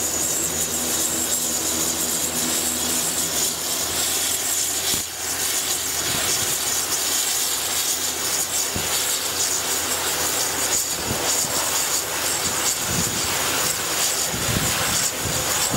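Dornier 328 turboprop's Pratt & Whitney Canada PW119 engines running on the ground: a steady, loud roar with a high turbine whine over it.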